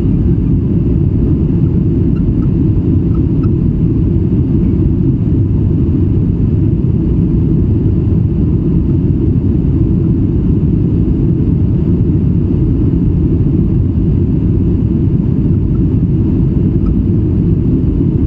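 Steady low rumble of jet engines at climb thrust and rushing air, heard inside the cabin of a Boeing 737 climbing just after takeoff.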